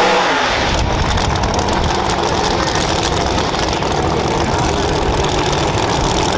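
A no-prep drag car's engine idles loudly with a rapid, choppy firing. The car is creeping toward the starting line just after its burnout.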